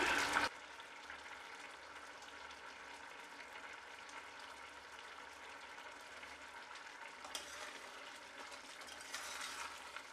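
Ash gourd and cowpea curry in thin coconut milk simmering in an open aluminium pressure cooker, a faint steady bubbling and fizzing as the liquid cooks down. Near the end a ladle stirs through it.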